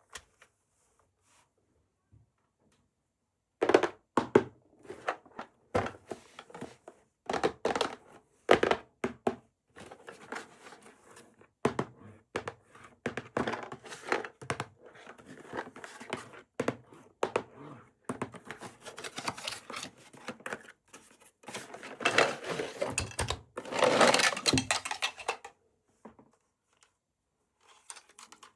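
Hands unboxing and handling a toy and its packaging: irregular clicks, knocks and crinkling of plastic and cardboard, starting a few seconds in, with a longer, louder rustling stretch near the end.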